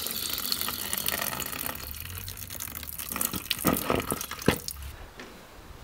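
Liquid pouring out of an oil catch can's drain through an opened 15 mm ball valve and hose, running steadily until it stops about five seconds in. A few knocks come near the end.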